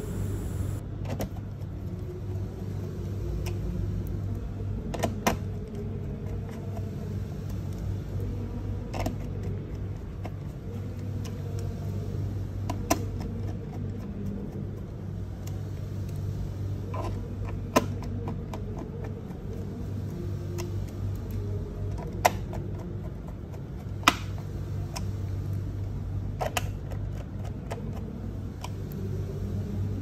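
Screwdriver tightening the screws of an Acer Nitro laptop's plastic base cover: scattered sharp metallic clicks and taps, one every few seconds, over a steady low hum.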